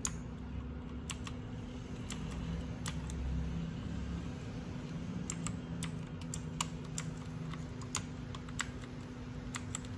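Brown-switch keys on a Dareu EK880 mechanical keyboard being pressed one at a time, about a dozen separate, irregularly spaced clicks, over a steady low hum.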